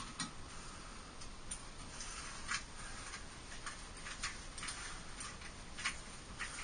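Scattered light clicks and ticks at an irregular pace from hand tools at work, over a steady hiss.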